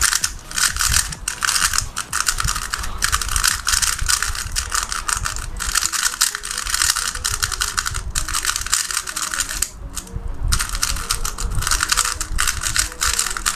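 Plastic 3x3 speed cube being turned rapidly by hand: a continuous, quick clacking of layers turning and snapping into place. The cube is freshly lubricated. There is a brief pause about ten seconds in.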